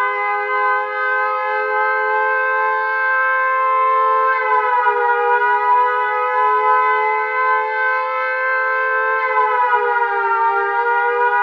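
Tornado-warning style room alarm sound effect: a loud, steady siren wail of two tones held together. Its pitch sags briefly about four and a half seconds in and again near the end, then settles back.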